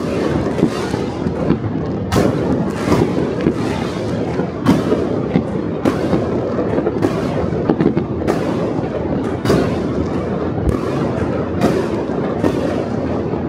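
Fireworks going off all over a city at once: a dense, unbroken din of distant bangs and crackling, with sharper, louder reports standing out every second or so.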